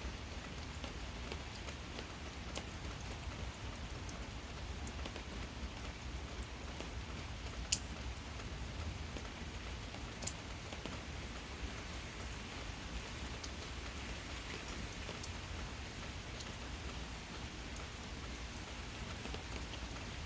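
Steady gentle rain, with scattered raindrops ticking on a surface; two sharper drop clicks stand out about 8 and 10 seconds in.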